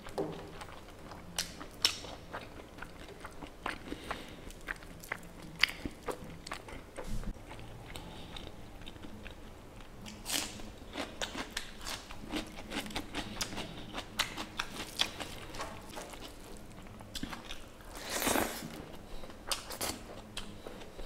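A person eating pork curry with rice close to the microphone: chewing and biting, with many short sharp mouth clicks and some crunchy bites.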